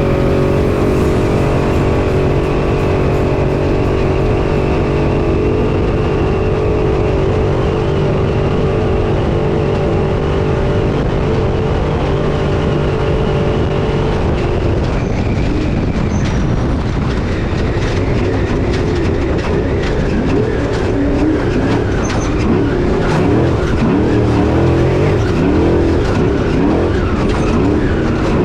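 Off-road race truck's engine heard from inside the cab. It holds a steady pitch for about the first half, then the revs rise and fall repeatedly, with many short knocks and rattles.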